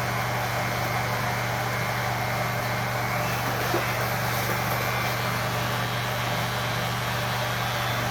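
Electric hair clipper running with a steady hum, its freshly sharpened blade cutting hair.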